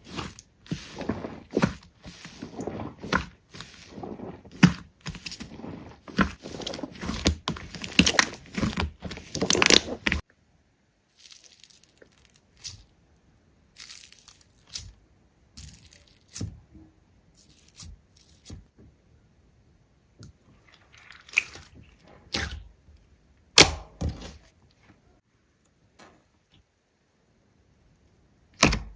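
Hands squishing and stretching a big slime: dense crackling and popping for about ten seconds, then scattered single pops and clicks.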